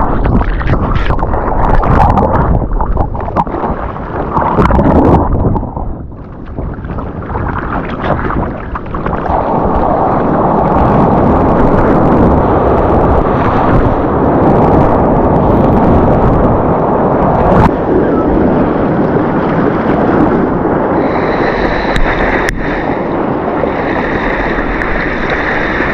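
Strong wind buffeting the microphone over the noise of breaking surf, loud and gusty, with a thin steady whistle near the end.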